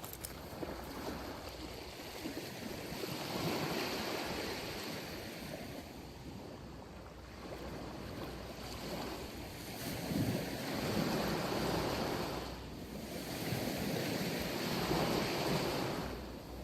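Sea waves breaking and washing up on a sandy beach. The surf swells and eases every few seconds, with the strongest surges about ten seconds in and near the end.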